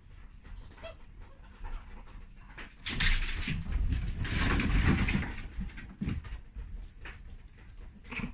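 Red fox and Samoyed puppy scrambling about on a wooden floor: light clicks and taps, then a loud burst of scuffling and rustling about three seconds in that lasts roughly two and a half seconds.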